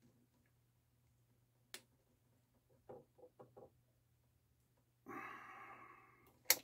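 Small screwdriver clicking and tapping in the shallow slot of a paint-locked screw on a turntable motor pulley, with a long sigh about five seconds in and a sharp click near the end.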